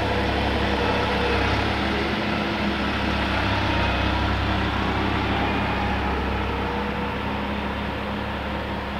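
Engine of a small work vehicle running steadily as it drives away, slowly fading.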